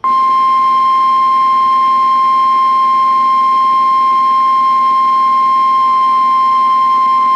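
Emergency alert attention tone: a single loud, steady, unbroken high pitch of about 1 kHz, the NOAA Weather Radio-style warning alarm tone that signals an urgent warning message is about to be broadcast.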